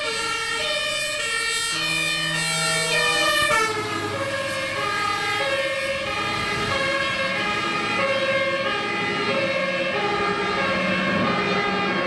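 A German fire engine's two-tone siren (Martinshorn) sounding as the HLF10 drives past on an emergency run, two notes alternating about every half second. The pitch drops about three and a half seconds in as the truck passes and moves away.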